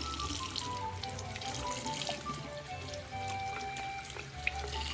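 Tap water running into a sink as glitter-covered squishy toys are washed under it, with background music playing over it.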